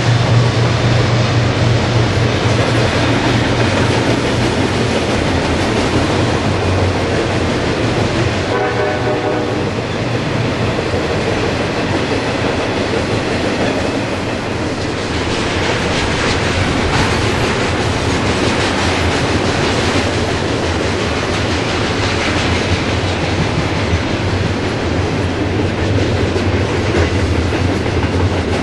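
Freight train rolling by on an upgrade: a low diesel locomotive hum, strongest at first, under the steady rumble and clickety-clack of the cars' wheels over the rail joints. A brief pitched tone sounds about nine seconds in.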